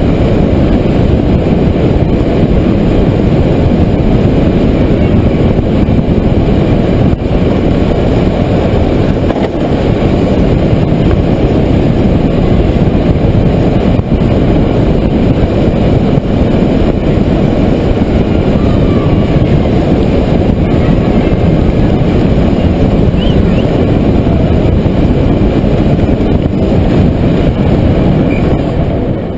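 Steady loud rush of wind on the onboard camera with tyre rumble from a gravity kart coasting downhill on asphalt, with no engine. The noise eases off near the end as the kart slows.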